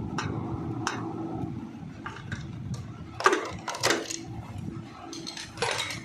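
Metal hand tools clinking and knocking against the Hero Honda CD100SS engine as it is being opened up, with several sharp metallic knocks, the loudest a little over three seconds in, over a low steady hum.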